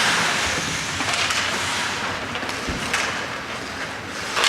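Ice hockey rink noise: a steady scraping wash, as from skates on the ice, with a few sharp clacks scattered through it.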